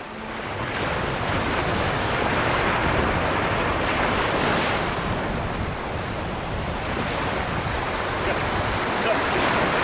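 Sea surf washing in, with wind, as a steady rushing noise that swells and eases slowly.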